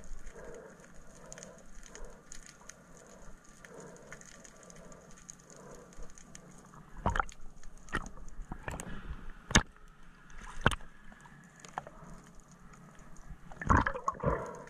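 Underwater sound heard through a diving camera: soft pulsing water movement, then a few sharp clicks and knocks from about halfway through, with a louder cluster of knocks near the end.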